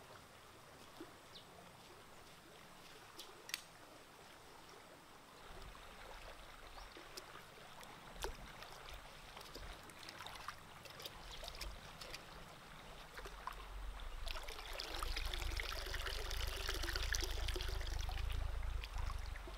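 Water sloshing and trickling as a clay pot is dipped and rinsed in a shallow stream, building about fourteen seconds in into water pouring and splashing out of the tipped pot back into the stream, the loudest part.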